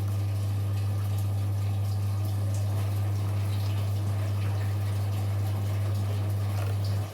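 Washing machine running water through it with a steady low electrical hum, cutting off abruptly near the end.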